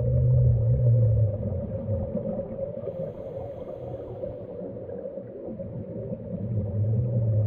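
Underwater audio of a scuba diver's regulator exhaling: a low bubbling rumble close to the camera, loud in the first second, easing off, then building again near the end with the next breath, over a steady low hum.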